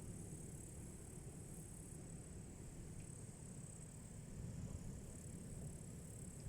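Faint, steady high-pitched chirring of crickets over a low, steady rumble.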